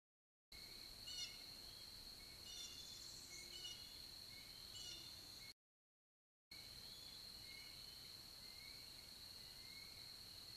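Faint outdoor ambience at a bald eagle nest camera: a steady high-pitched whine with scattered short bird chirps, more of them in the first half. The sound drops out to dead silence for the first half second and again for about a second midway, where the camera stream buffers.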